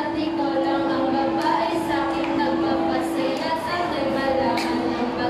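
A group of girls singing in Filipino over a long, steady held note that breaks off briefly about three and a half seconds in.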